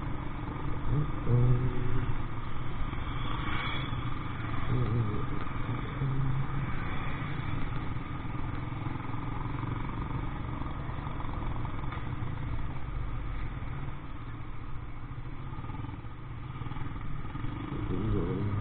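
Motorcycle engine running steadily while riding through a town street, with another motorcycle close ahead.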